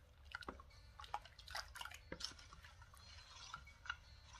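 Metal spoon stirring thin rice-flour batter in a stainless steel bowl: faint, irregular wet slaps and drips.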